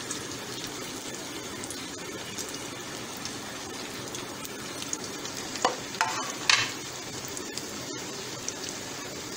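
Potato bites deep-frying in hot oil in a karahi: a steady sizzle, with a few sharper crackles a little past halfway.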